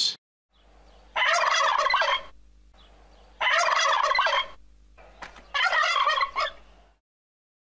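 Male turkey gobbling three times, each gobble about a second long, over a faint low hum.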